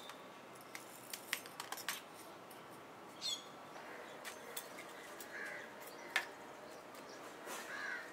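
Short clicks and scrapes of a small hand trowel working loose gravel, clustered in the first two seconds, with a few short bird chirps and calls, one falling chirp a little over three seconds in.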